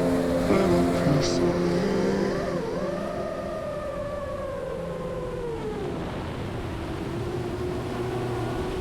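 FPV drone's electric motors and propellers whining in several pitches at once. The pitch shifts with the throttle: it slides down through the middle and settles into a steadier, lower whine near the end.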